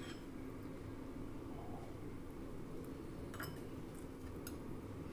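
Quiet room tone with a steady low hum and a few faint clinks of a steel spoon against steel bowls.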